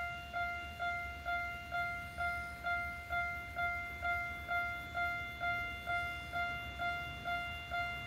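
Japanese railway level-crossing warning alarm ringing, about two chimes a second at one unchanging pitch, each dying away quickly. It is in its single-tone mode rather than the usual alternating two tones, warning that a train is approaching.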